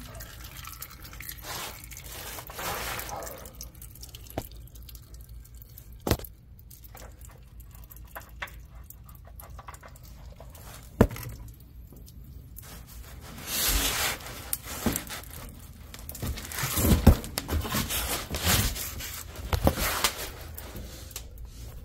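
Handling noise from moving about under a truck: quiet rustling, a couple of sharp clicks, and louder bursts of scraping and rustling in the second half.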